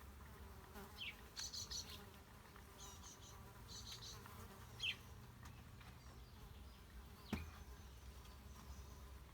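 Small birds chirping in short high bursts, with a few quick falling calls, over a faint insect buzz.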